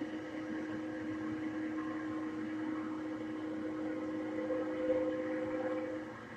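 Locomotive air horn sounding one long held chord of several steady notes that cuts off about six seconds in, heard through a computer speaker from a webcam stream.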